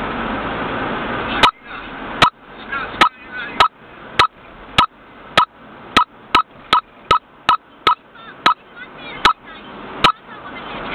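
A run of about seventeen sharp clicks over steady road noise. They come slowly at first, speed up to about three a second in the middle and slow again near the end, and the background noise drops out briefly after each click.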